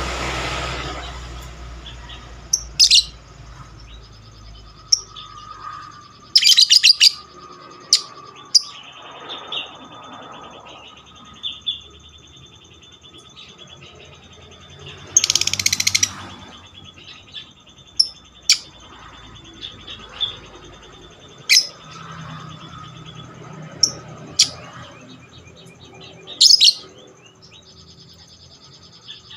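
Lovebird calling: long runs of fast, high chattering trill (the 'ngekek' song), broken about eight times by loud, sharp shrieks, the longest about halfway through.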